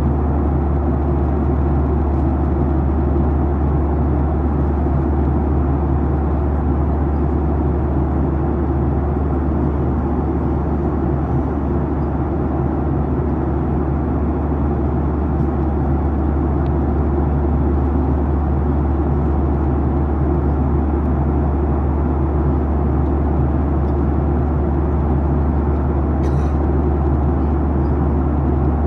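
Steady cabin noise of a Boeing 737-900ER in cruise, heard inside the cabin: a constant rush of airflow over a low hum from its CFM56-7B engines, holding an even level throughout.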